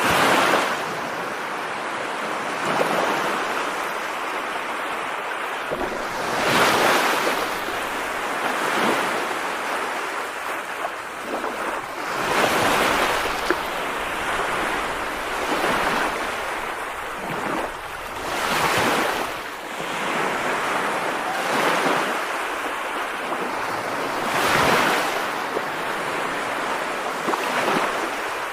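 Steady rushing water noise that swells and eases back about every six seconds.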